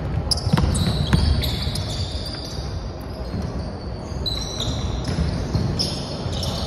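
Basketball dribbled on a hardwood gym floor, a few sharp bounces in the first second or so, with players' sneakers squeaking and footsteps thudding on the court.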